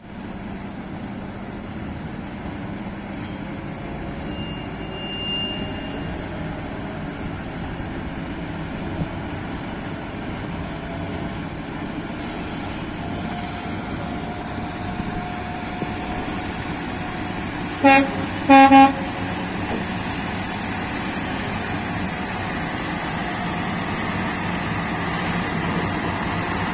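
Old Mercedes-Benz truck running steadily while hauling a heavy load of rail wagons. About two-thirds of the way through, a horn sounds twice: a short toot, then a slightly longer one.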